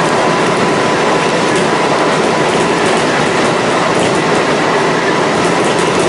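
Kintetsu 1259 series electric train (set 1268F, Hitachi GTO-VVVF) running between stations at a steady pace: wheel and rail noise with a faint steady whine.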